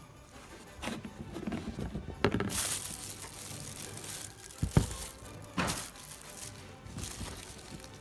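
A few separate knocks and clicks of something being handled, with a short hiss after the second one, over faint background music.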